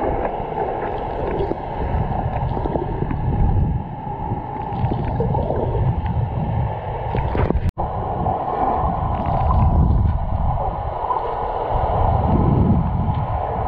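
Muffled underwater noise from a camera held below the surface: water gurgling and sloshing against it with a low, swelling rumble. It drops out for an instant a little past halfway.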